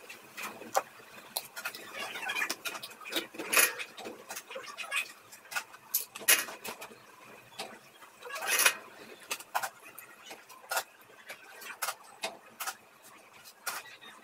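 Scattered small clicks, taps and scrapes of hand work on wiring: wires being bent and a soldering iron touched to the terminals of large filter capacitors and a transformer.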